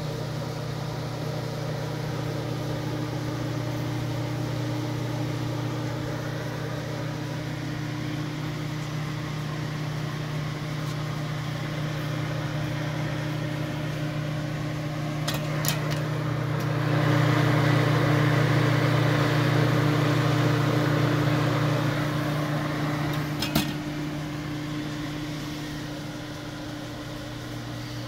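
Lincoln conveyor pizza oven running, its blower fan and motors giving a steady hum. For about five seconds past the middle a louder rushing noise swells over the hum, and there are brief clicks a little before it and once near its end.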